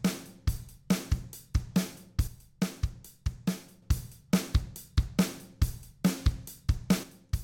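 Sampled drum kit loop playing a steady beat at about 140 beats per minute: kick, snare, hi-hats and cymbals. It runs through Logic Pro's stock Compressor plugin.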